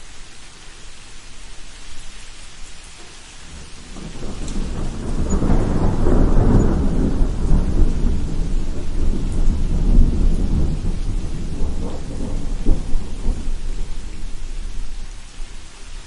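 Steady rain falling, with a long roll of thunder that swells about four seconds in, rumbles deep and loud for several seconds, and dies away near the end.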